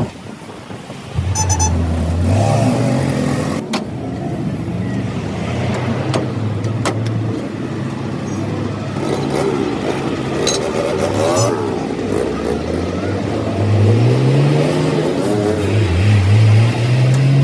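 A motor vehicle engine running and revving, its pitch stepping up and down several times and climbing again near the end, with a few sharp clicks in between.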